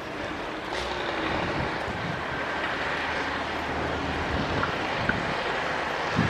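Heavy earthmoving machinery working: a steady diesel engine drone under a broad rushing noise, growing a little louder about a second in.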